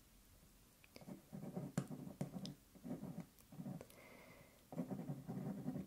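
Pen writing on paper, with small clicks and scratches, over a soft, low voice murmuring in four short stretches.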